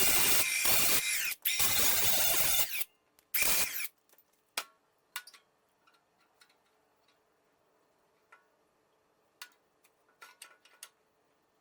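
A handheld power tool runs on steel in short bursts with a high whine, switching off after about four seconds. Then come scattered light clicks and taps of metal being handled.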